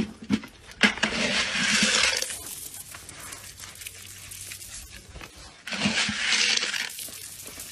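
Dry corn kernels thrown onto concrete twice, each a spray of many small hits lasting about a second, the first about a second in and the second about six seconds in.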